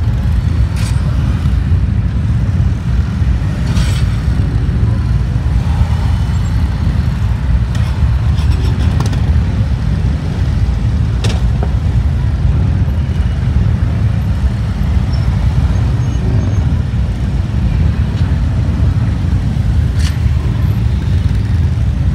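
Heavy touring motorcycles running at low speed as they weave through a cone course, a steady low rumble throughout. A few short sharp clicks sound along the way.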